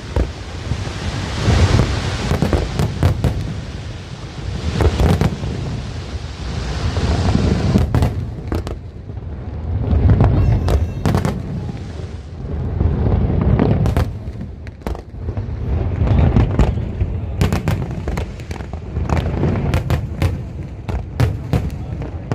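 Fireworks going off: many sharp bangs and crackles over a low, rolling rumble that swells and fades every few seconds.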